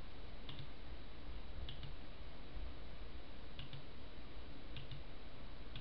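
A few faint computer mouse clicks, some in quick pairs, over a steady background hiss.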